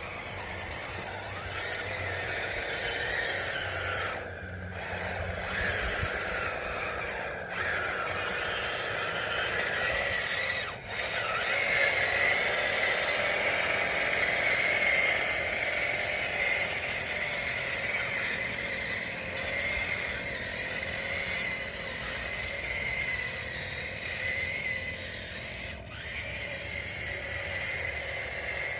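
Electric drive motors and gearing of a DXR2 RC bulldozer whining as it runs, the pitch rising and falling as the speed changes, with a few brief drops.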